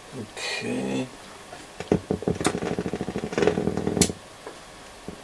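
Hacker Super Sovereign RP75 transistor radio motorboating as power is applied. After a short downward swoop and a brief hum, the speaker gives a rapid putt-putt, about ten pulses a second, with a few sharp clicks. This is low-frequency oscillation on a set drawing far too much current (120 mA), which the repairer puts down to a likely amplifier-board fault.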